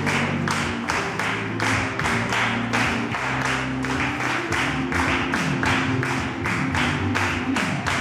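Up-tempo lambada dance music with a steady beat of about four hits a second over a bass line that slides between notes.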